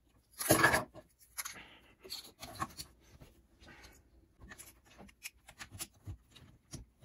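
Plastic LEGO pieces clicking and rattling as they are handled and pressed onto a model, with one louder thump about half a second in.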